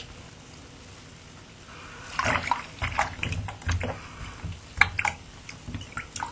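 Bathwater in a bubble bath splashing and sloshing in irregular bursts for about three seconds, starting about two seconds in, after a quiet start.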